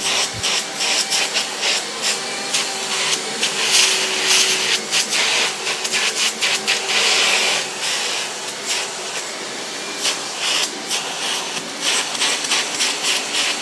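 Canister vacuum cleaner running, a steady hissing suction with a low hum, and many short clicks and knocks as the nozzle works over the floor.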